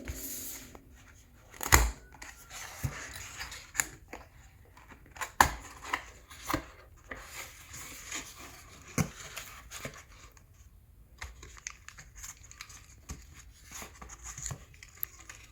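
Packaging being opened and handled by hand: tearing and crinkling, with scattered sharp knocks and clicks, the loudest about 2, 5 and 9 seconds in.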